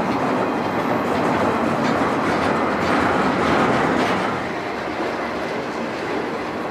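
Freight train rolling past, its steel wheels clicking over the rail joints with a steady rumble and clatter.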